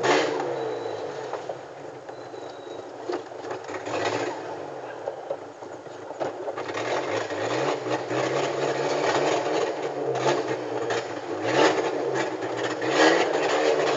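VW Gol G4's engine and straight-through exhaust running on the road with the lambda (oxygen) sensor removed. The engine note rises and falls as it revs and eases off, with a few sharp cracks, the loudest near the end.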